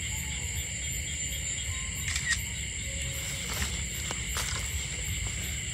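Steady, high-pitched chorus of insects over a low rumble, with a few short clicks and rustles of handling about two seconds in and again around four seconds.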